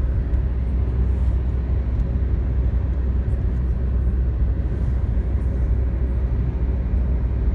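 Steady road noise of a moving car heard from inside the cabin: a deep, even rumble of tyres and engine with a hiss of wind above it.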